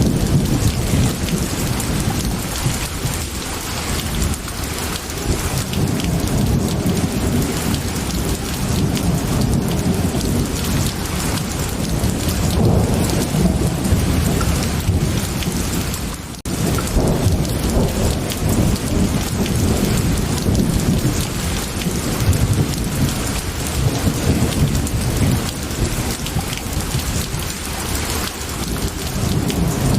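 Thunderstorm ambience: steady heavy rain with a low rumble of thunder that swells and eases. The sound briefly drops out about halfway through.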